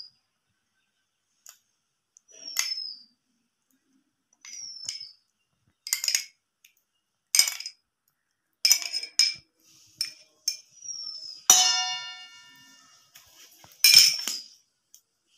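A glass bowl tapping, clinking and scraping against the rim of a stainless steel bowl as sauce is poured from it, with a few short squeaks that fall in pitch. About eleven and a half seconds in, one knock sets the steel bowl ringing with a clear tone that slowly fades.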